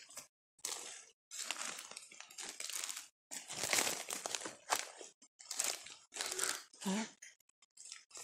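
Footsteps crunching through leaf litter on the forest floor, in irregular bursts of crackling.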